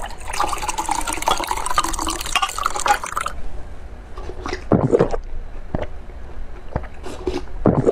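Canned fruit in syrup poured into a glass mug, the liquid filling the glass for about three seconds and stopping suddenly. Then two short sips from the mug, one about five seconds in and one near the end.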